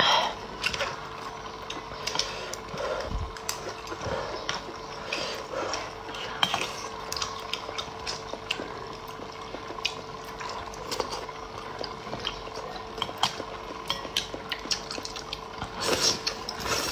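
A plastic spoon stirring and scooping in soupy hot pot in a plastic container: scattered small clicks and liquid sloshing, with a louder cluster of clicks near the end.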